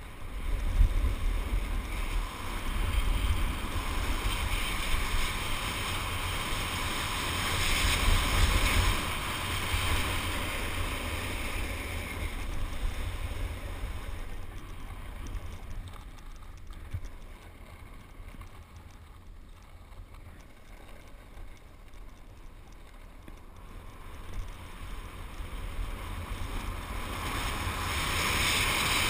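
Wind buffeting an action camera's microphone and edges scraping and sliding over packed snow during a run down a groomed slope. The rushing noise eases off in the middle as the rider slows, then builds again near the end as speed picks up.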